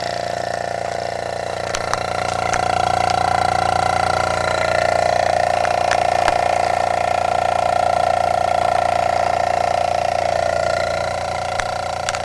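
Opened-up vintage hermetic reciprocating refrigeration compressor running on mains power with its shell cut away: a steady motor hum with a strong high tone over it and faint scattered ticks from the mechanism. It grows a little louder about two seconds in.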